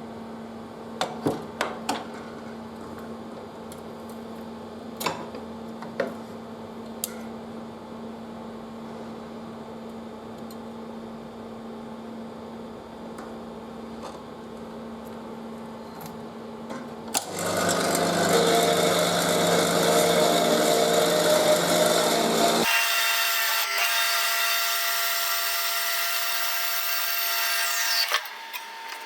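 Lathe running with a steady hum and a few sharp clicks. About 17 seconds in, a loud cutting noise starts as the tool cuts the stainless steel bar, with a high ringing tone over it in the later part that stops shortly before the end.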